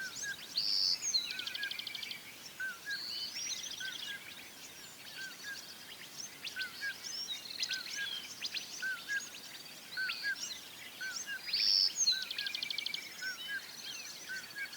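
Several birds singing and calling together: one short hooked call repeats a little more than once a second beneath a busy layer of higher chirps, whistles and buzzy trills.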